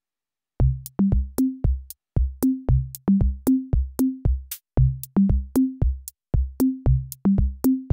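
Background music: a drum-machine beat of short low drum hits that climb in pitch in repeating groups of three, with sharp high clicks between them. It starts about half a second in.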